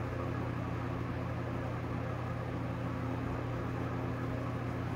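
Steady low hum with a faint even hiss: room background noise from a running machine such as a fan or air conditioner.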